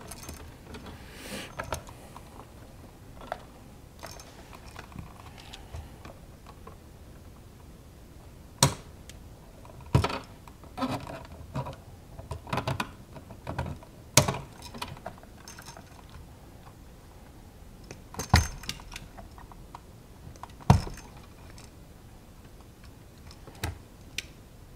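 Gloved hands working wires, a wall receptacle and lever-nut connectors in an electrical box: rustling and small ticks, with about half a dozen sharp clicks and snaps a few seconds apart.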